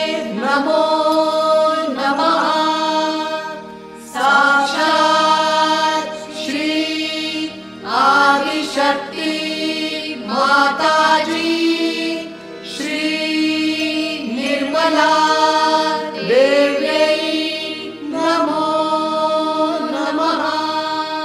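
Melodic Sanskrit chanting of a Ganesha hymn, sung in phrases of about two seconds with held notes, over a steady low drone.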